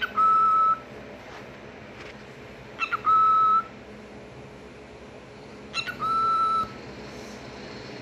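Cockatiel whistling: three flat, steady whistle notes of about half a second each, about three seconds apart, each led by a short sharp chirp.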